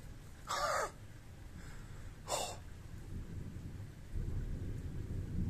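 Two short breaths close to the microphone, then from about four seconds in a low rumble of distant thunder.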